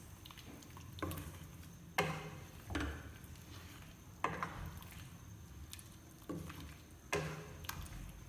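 A wooden spoon stirring a wet mix of minced meat, chickpeas and chopped vegetables in a pot. About half a dozen sharp knocks sound where the spoon strikes the pot, at uneven intervals of about a second.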